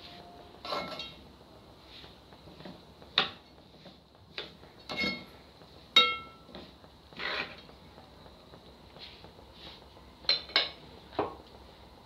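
Metal spatula scraping and knocking against a metal pot as semolina is stirred and roasted in oil on low heat. Irregular scrapes with a few sharp clinks, some of which ring briefly.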